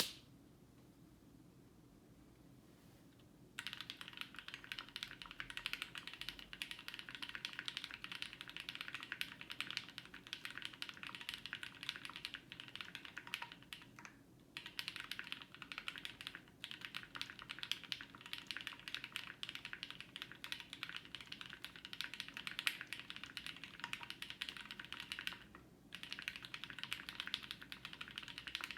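Typing on an IDB60 custom mechanical keyboard, plateless, with frankenswitches (Gateron Black bottom housings, Cream top housings, UHMWPE stems, 55 g TX springs, filmed) under GMK Metropolis keycaps. Fast, continuous keystrokes start a few seconds in, with two brief pauses.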